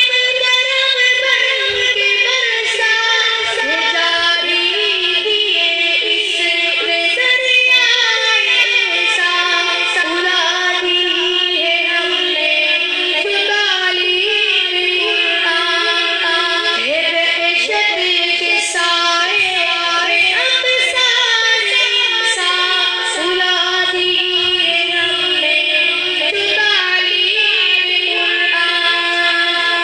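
An Urdu Islamic poem (nazm) sung in a high voice, unbroken throughout.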